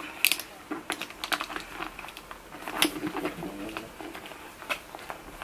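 Scattered light clicks and taps as a metal binder-clip closure on a leather bag is handled, its wire arms folded back down against the flap.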